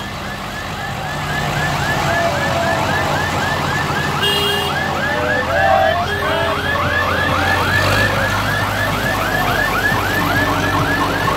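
An electronic siren in a rapid yelp, about four rising-and-falling whoops a second, over the low running of passing tractor engines. A short horn honk comes about four seconds in.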